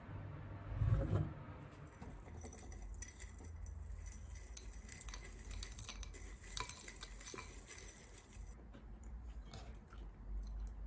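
Light clinks and small handling sounds of dishes and cutlery, with a soft thump about a second in.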